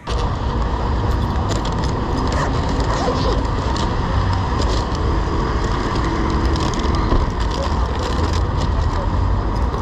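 Wind buffeting an action camera's microphone while cycling through city traffic, mixed with road noise from passing cars. The noise cuts in abruptly and holds steady, with scattered small clicks and rattles.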